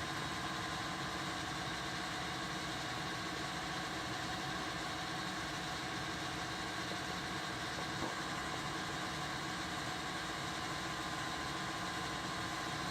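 1952 Singer 201-2 sewing machine running steadily on its electric motor, an even hum with a steady whine and no change in speed. A faint click about eight seconds in.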